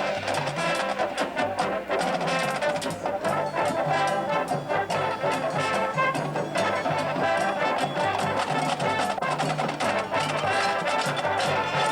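Drum and bugle corps playing: a brass line sounding sustained chords over a rapid run of drum strokes.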